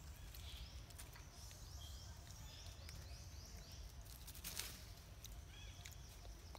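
Faint outdoor ambience with short high chirps: a quick run of rising ones, about four a second, in the middle, and a few lower ones near the end. One sharp click comes about two-thirds of the way through.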